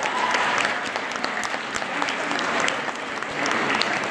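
Audience applauding: dense, steady clapping that swells near the start and again near the end.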